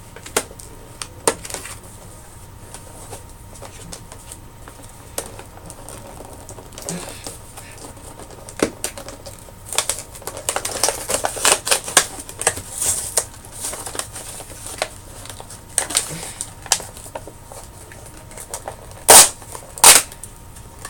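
A toy's plastic-and-cardboard packaging being handled and opened by hand: irregular crackling and clicking, busiest in the middle, with two loud sharp snaps near the end.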